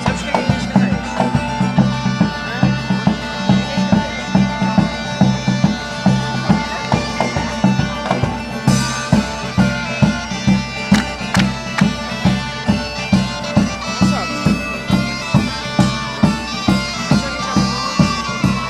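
Bagpipes playing a traditional folk dance tune over a steady drone, with a drum beating about twice a second.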